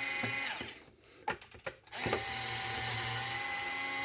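Small electric screwdriver motor running steadily while driving out screws. It winds down about half a second in, a few sharp clicks follow, then it runs again from about two seconds in and winds down near the end.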